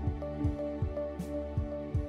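Background music: held notes over a steady low beat, about two and a half beats a second.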